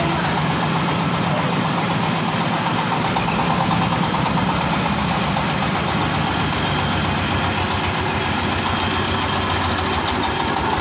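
An engine idling steadily, with a fast, even pulsing throughout.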